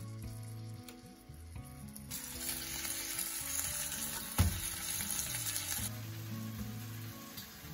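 Bacon sizzling in a rectangular non-stick frying pan, the hiss coming up about two seconds in and easing off near the end, with one sharp clack of the metal utensil against the pan about four seconds in. Soft background music with a steady bass line plays underneath.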